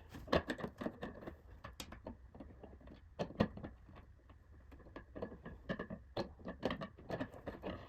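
Irregular clicks and small knocks of screws and a smoke detector mounting bracket being handled while it is fitted to the ceiling, with one sharper knock about three and a half seconds in.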